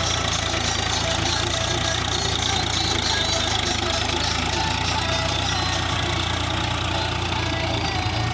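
Swaraj 735 FE tractor's three-cylinder diesel engine running steadily under load as it pulls a reversible plough through the soil.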